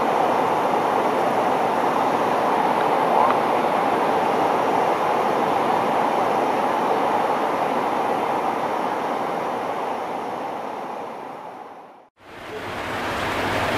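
Steady rushing noise on the flight deck of a Boeing 747-400 freighter in flight, mostly air rushing past the cockpit. It fades out about twelve seconds in and comes back a moment later.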